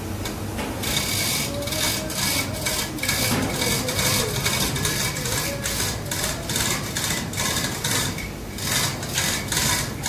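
Hand chain of a chain-block hoist being hauled hand over hand, rattling and rasping through the hoist in a steady rhythm of about two or three strokes a second.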